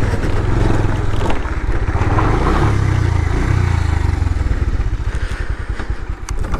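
Bajaj Pulsar 150's single-cylinder engine running under throttle, its pitch rising and falling, then easing toward a slow, uneven idle near the end.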